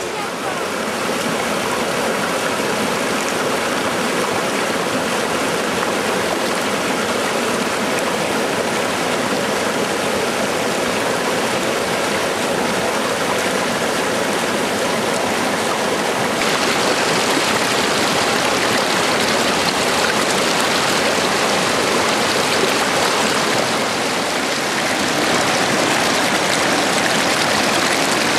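Steady rushing of a stream or river, an even hiss of running water that turns brighter and slightly louder a little past halfway.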